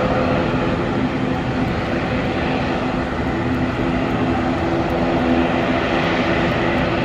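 ATR 72-600 turboprop's twin Pratt & Whitney PW127 engines and propellers running with a steady droning hum as the airliner rolls along the runway.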